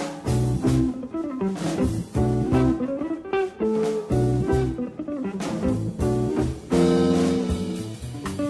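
Jazz electric archtop guitar playing single-note lines and chords over a plucked upright double bass, with a loud held chord about two-thirds of the way through.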